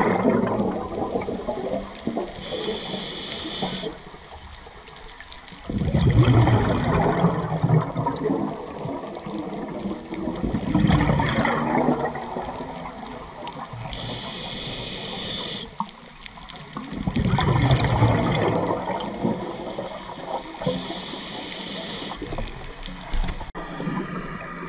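A scuba diver breathing through a regulator underwater. About four gurgling rushes of exhaled bubbles come some five to six seconds apart, with short hissing inhalations through the regulator between them.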